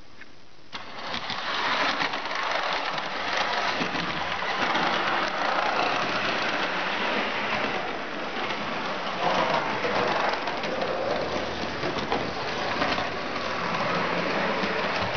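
Model tram running along its track, starting a little under a second in: the steady noise of its motor and wheels on the rails.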